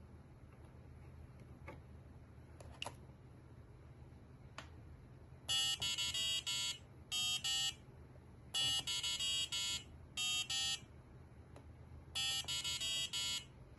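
Piezo buzzer on a Maker Uno (Arduino Uno-compatible) board playing short runs of electronic beeps of changing pitch, like a simple tune, in three phrases with pauses between. A few faint clicks come before the first phrase.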